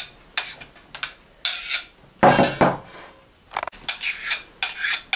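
Spoon scraping and clinking against a bowl as thick pizza sauce is spooned out and spread. A string of short, irregular scrapes, with one longer, louder scrape about two seconds in.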